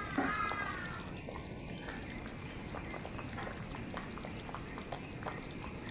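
Pot of matooke and groundnut katogo simmering, a steady bubbling with scattered small pops.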